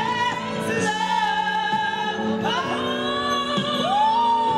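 A woman and a man singing a duet into one microphone, holding long notes that slide in pitch; near the end one voice holds a high note that swells and then falls away.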